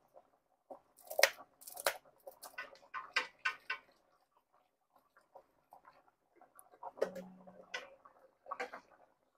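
Wire whisk clicking and scraping against the inside of an enameled Dutch oven while stirring a cream sauce, in irregular runs of clicks that are loudest about a second in.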